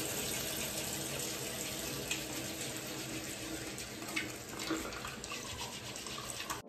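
Bathroom tap running steadily into a sink while hands are washed, with a few small splashes.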